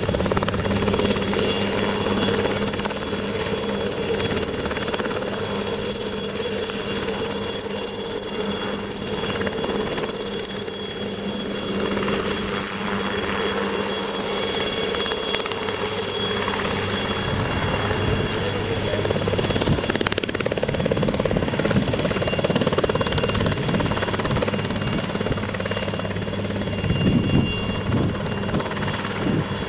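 Light turbine helicopter flying low and coming in to land: a steady rotor noise with a high, even turbine whine, swelling a little near the end as it settles.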